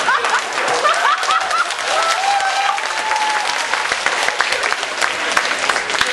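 Audience applauding, with a few voices rising over the clapping in the first few seconds.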